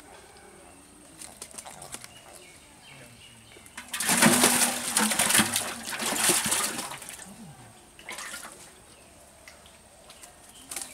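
A freshly caught fish thrashing and splashing in the water of a metal pot: a loud burst of splashing starts about four seconds in and lasts some three seconds, with a shorter splash a second later.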